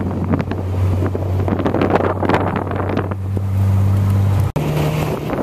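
A moving car heard from inside, with the window open: a steady low engine drone under wind rushing and buffeting on the microphone. The sound cuts out for an instant about four and a half seconds in, and the drone then comes back a little higher.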